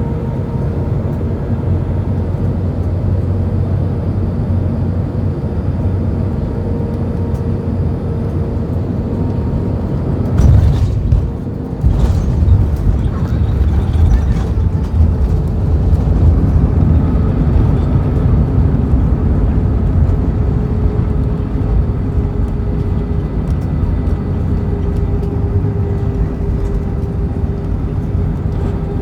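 Cabin noise inside an Airbus A320 with IAE V2527E engines: a steady drone of engines and airflow with a held engine tone. About ten seconds in, a sudden jolt and brief dip is followed by louder rumbling and rattling.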